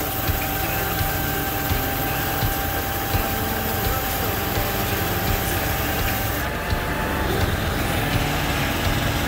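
Argo Conquest 8x8 amphibious ATV running steadily through swamp water, its engine note carrying a steady high whine.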